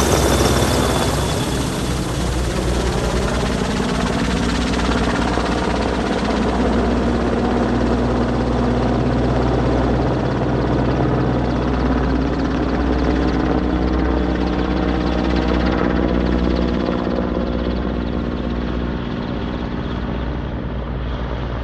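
Royal Navy AgustaWestland AW101 Merlin helicopter flying past and climbing away: steady rotor beat with the whine of its three turboshaft engines, the sound slowly fading and growing duller as it moves off.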